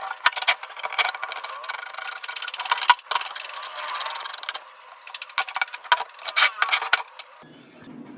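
Metal clinks, knocks and rattles of tools and loose parts as a cast iron cross slide vise is taken apart, with a stretch of rough scraping noise in the first half.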